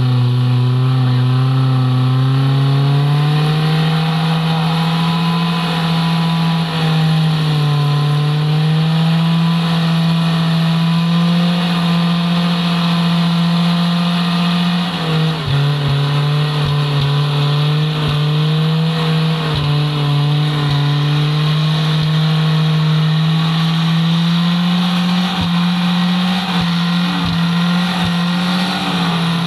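A Suzuki Katana off-road 4x4's engine running hard and steadily, its pitch stepping up about three seconds in, dropping around eight seconds and climbing again near the end. Scattered short knocks come in the second half.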